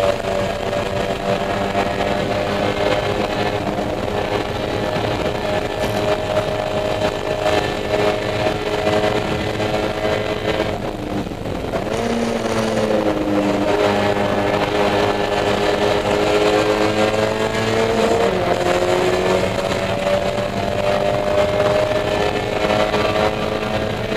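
Spec Miata race car's four-cylinder engine running hard, heard from inside the cockpit. About eleven seconds in it eases off briefly, then the revs climb steadily, drop suddenly at a gear change about eighteen seconds in, and climb again.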